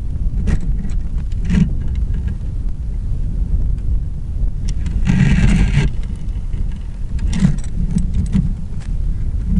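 Wind buffeting the microphone on open ice: a steady low rumble, with scattered light knocks and a louder rush about five seconds in.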